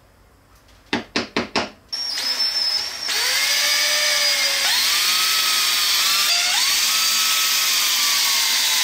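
Four quick sharp taps of a center punch being struck, then an electric drill starts about two seconds in and runs loudly, boring the screw holes. Its pitch dips and rises several times as the trigger and the load change.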